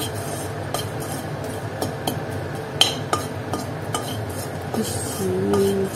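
A steel slotted spoon stirring and scraping in a metal kadhai, with irregular sharp clinks of metal on metal, the loudest about three seconds in. Green chillies are being dry-roasted in rock salt.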